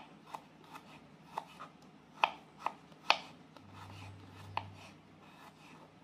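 Kitchen knife slicing garlic cloves on a wooden cutting board: irregular sharp knocks of the blade hitting the board, loudest about two and three seconds in.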